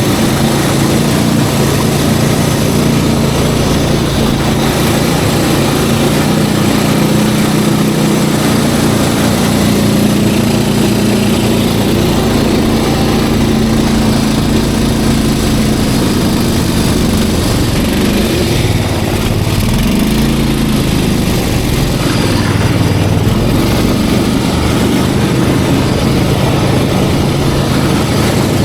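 Snowmobile engine running steadily and loudly, its note wavering up and down for a few seconds about two-thirds of the way through.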